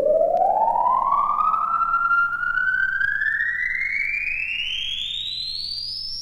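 Electronic 1960s outer-space sound effect from a vintage vinyl record: a single tone gliding steadily upward in pitch from mid to very high, slowly getting quieter, over a faint steady low hum.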